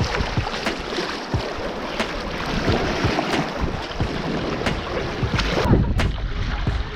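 River water rushing and splashing around inflatable air mattresses drifting downstream, with a steady rush and many small sharp splashes, and a heavier slosh about six seconds in.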